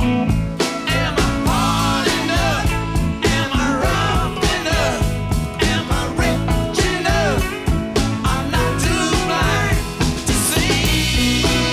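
Rock music with guitar, drums and a singing voice, at a steady beat.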